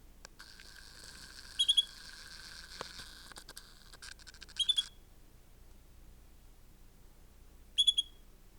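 Canary chirping: three short bursts of quick, high call notes, each a rapid two or three chirps, spaced a few seconds apart.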